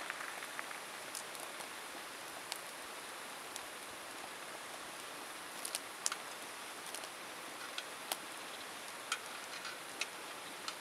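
Campfire burning, with irregular sharp pops and crackles from the wood over a steady soft hiss.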